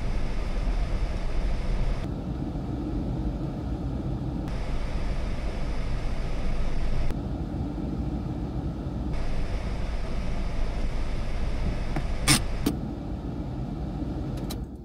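Steady low rumble of a car engine running, with noise over it that changes abruptly several times. Two sharp clicks come near the end.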